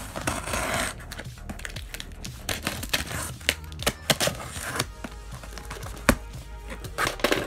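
Scissor blade drawn along the packing-tape seam of a cardboard box, slitting the tape with a scraping sound, followed by clicks, taps and crinkles of tape and cardboard as the box is handled, with a louder scrape near the end.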